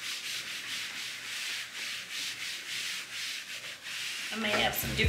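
A cloth wiping a tabletop in quick back-and-forth strokes, a repeated dry rubbing. Music with singing comes in near the end.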